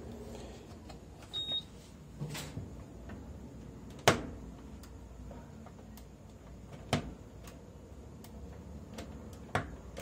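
Electrolux 17 kg top-load washing machine starting its cycle: one short electronic beep from the control panel about a second and a half in, then three sharp clicks about every three seconds, the loudest about four seconds in.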